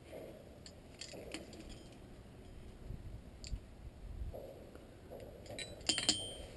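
Metal pieces being handled and set against each other, with scattered light clicks and a dull bump midway. Near the end come a few sharp metal clinks with a brief ring.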